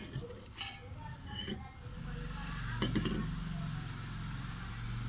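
A utensil clinking against a bowl while stirring a thickening baking-soda slime mixture, with a few sharp clinks in the first three seconds. A steady low hum comes in about two seconds in.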